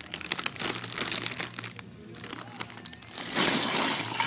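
Lego pieces being handled: scattered small plastic clicks and rustling, growing louder for about a second near the end.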